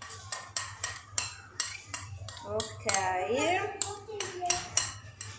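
Metal spoon scraping and tapping against a bowl while pouring batter out, a run of sharp clinks about two to three a second. A short voice-like sound comes about three seconds in.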